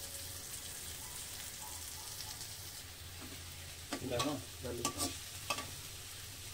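Onions and spices frying in a steel kadai with a faint, steady sizzle. About four seconds in, a steel spoon scrapes and clinks against the pan three times as the mixture is stirred.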